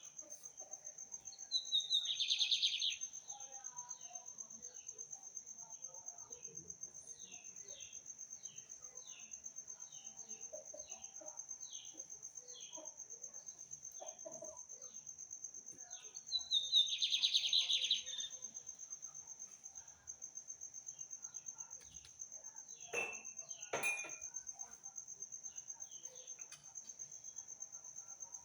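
Small seedeater songbird singing: rows of short falling chirps, with two louder, denser bursts of song, one about two seconds in and one near the middle. A steady high-pitched whine runs underneath, and two sharp clicks come later.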